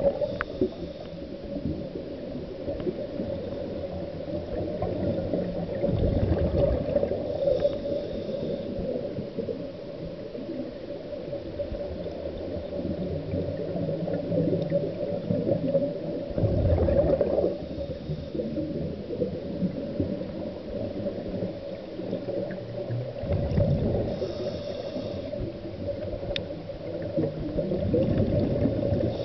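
Underwater sound of a scuba diver breathing through a regulator: several rushes of exhaled bubbles a few seconds apart over a steady muffled underwater hum.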